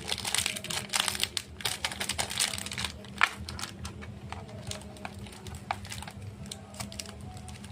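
Chocolate bar wrappers and packaging being handled for ASMR: quick crackling crinkles and clicks, dense for the first few seconds and then sparser, with one sharp click about three seconds in.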